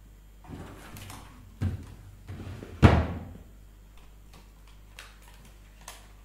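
Soft handling and rustling, a thump, then one loud sharp slam about three seconds in that rings off briefly, like a drawer or door banged shut; a couple of faint clicks follow near the end.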